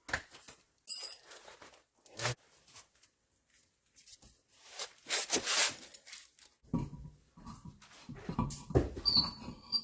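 Scattered clicks and knocks, a stretch of rustling, then a dense run of clunks and clatter from tools and parts being handled.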